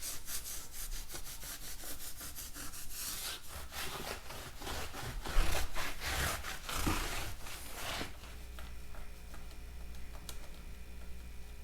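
Quick back-and-forth scrubbing strokes rubbing rust and dirt off a chrome motorcycle wheel rim. The scrubbing stops about eight seconds in, leaving a low steady hum.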